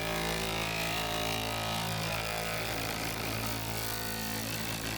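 Ultrasonic cleaner running with a steady electric buzz, cleaning a polished watch case.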